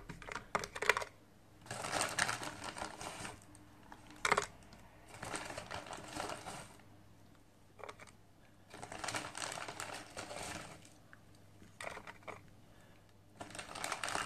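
Frozen chicken nuggets being handled and set down on a pressure cooker's steamer trivet: a clicking, rustling clatter in bursts of a second or two, with one sharp knock about four seconds in.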